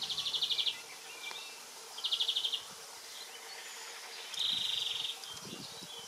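An insect chirping: three short, high trills of rapid pulses, about two seconds apart.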